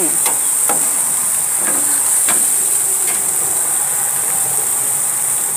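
Pork jaw bones sizzling on a gas grill: a steady high hiss, with a few sharp crackles in the first half.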